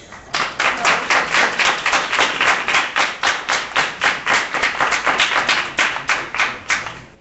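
Loud hand clapping close to the microphone in a fast, even rhythm of about four claps a second, starting just after the opening and stopping near the end.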